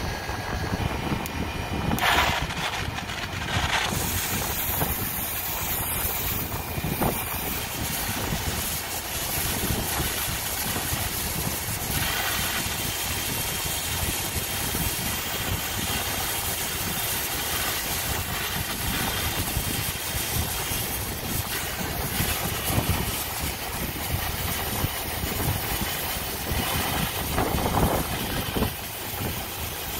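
Brazing torch flame burning at the copper joints of a refrigeration compressor: a steady rushing roar with a low rumble, a little louder for a moment about two seconds in and again near the end.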